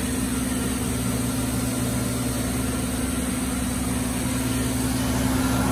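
Steady hum of running shop machinery: a constant mid-pitched tone over a low drone and a hiss, with no change in speed or load.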